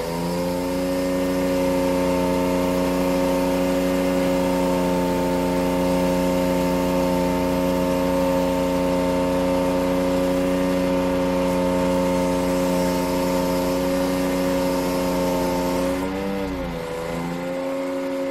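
Aerial work platform truck's engine running steadily at a raised, even speed to drive the boom hydraulics; about 16 seconds in its pitch dips and wavers briefly, then steadies again.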